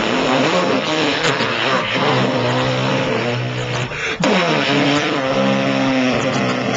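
A man making a car-engine noise with his mouth into cupped hands: a low buzzing hum that slides down in pitch and holds, breaks off briefly about four seconds in, then slides down again like a second rev.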